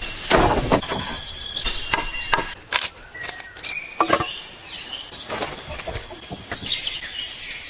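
Steady high-pitched chorus of jungle wildlife, broken by a series of sharp knocks and clicks, most of them in the first few seconds.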